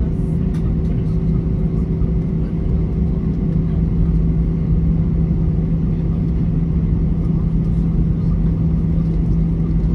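Steady cabin drone of an Airbus A321 taxiing on its jet engines, heard from a window seat over the wing: a constant low hum with an even tone and no change in power.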